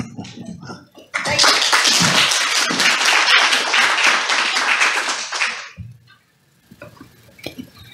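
Congregation applauding, starting about a second in and dying away after about four and a half seconds, leaving a few faint knocks.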